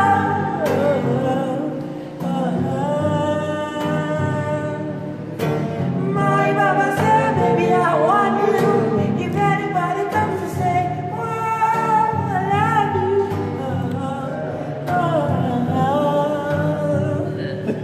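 A man singing with sliding vocal runs over an acoustic guitar accompaniment.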